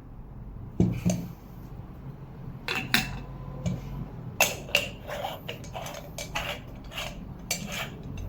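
Metal parts of a Bialetti moka pot clinking and knocking together as it is handled, a string of sharp clinks with a few louder knocks.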